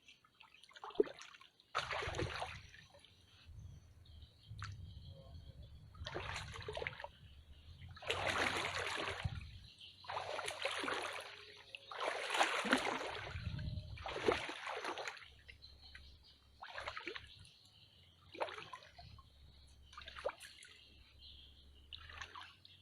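Water splashing and trickling in a series of bursts, every second or two, with the loudest splashes in the middle.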